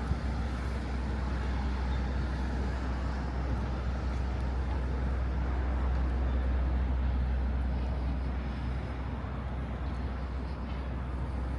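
Low rumble of street traffic, a vehicle passing that swells about halfway through and then fades, with faint voices of passers-by.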